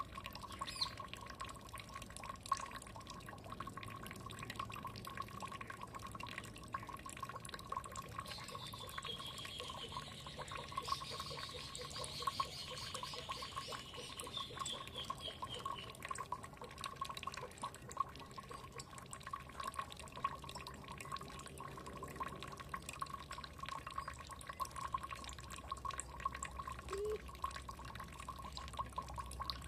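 Water dripping and trickling steadily, a constant patter of small drops. A bird sings a series of high chirps that fall in pitch, from about nine seconds in until about sixteen.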